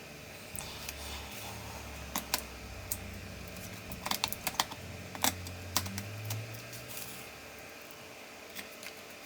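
Light, sharp plastic clicks and taps of the Asus K551L laptop's parts being handled and pressed together, a quick cluster of them about halfway through, over a faint low hum.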